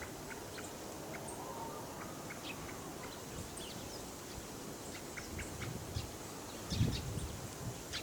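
Wild bird calls: scattered short, high chip notes over a steady outdoor hiss, with a low rumble about seven seconds in.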